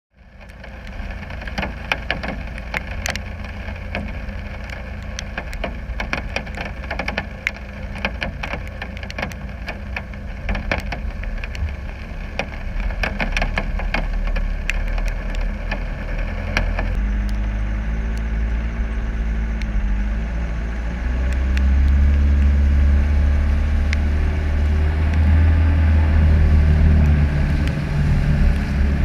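Land Rover Discovery 300Tdi's four-cylinder turbo-diesel engine running as the truck crawls over a rough muddy track, with a clatter of sharp knocks and rattles through the first half. From about 17 s the engine note comes through more clearly and grows louder under load as the truck drives into muddy water, splashing near the end.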